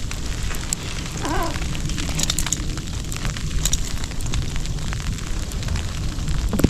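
Wind buffeting the camera microphone, a steady low rumble, with scattered light ticks through it and a brief wavering tone about a second in.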